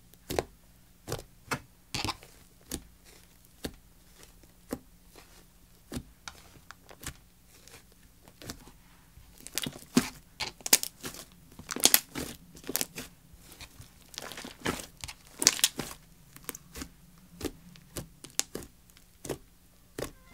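Fluffy shaving-cream slime being squeezed, poked and pulled apart by hand: sharp sticky pops and crackles, about one or two a second at first, coming thick and loud in the middle as it is stretched, then spacing out again.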